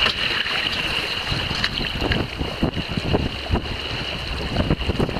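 Water rushing and splashing along the hull of a Beneteau Platu sailboat heeled and under way, with wind buffeting the microphone and a steady high whine.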